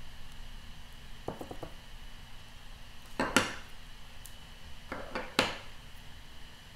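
Clear acrylic stamp blocks clacking on the craft table as they are handled and set down: a few light taps about a second in, then sharper knocks around three and a half seconds and again around five seconds in, the one at three and a half the loudest.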